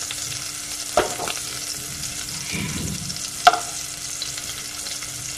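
Chicken pieces sizzling steadily as they shallow-fry in hot oil in a nonstick pan. Metal tongs click sharply against the pan twice, about a second in and again midway, as the pieces are turned.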